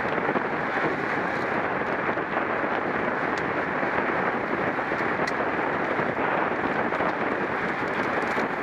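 Steady rush of wind over the microphone of a camera on a road bicycle racing at speed, with a few faint ticks.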